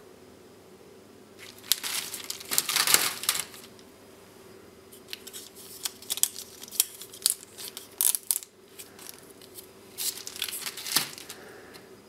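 Plastic carrier tape of surface-mount power transistors crinkling and crackling as it is handled, in three spells of crackles and sharp clicks.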